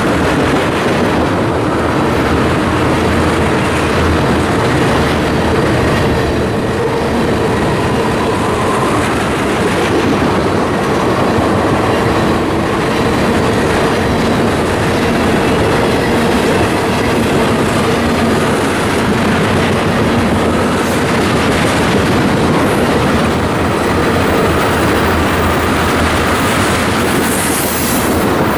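Tank cars of a freight oil train rolling past close by: a loud, steady rumble of steel wheels on the rails.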